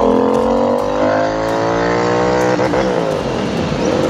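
Royal Enfield Continental GT 650's parallel-twin engine accelerating through the gears on new aftermarket headers and free-flowing slip-on mufflers, loud with a deep note. Its pitch climbs steadily, drops at an upshift about two and a half seconds in, then goes uneven near the end as the throttle eases.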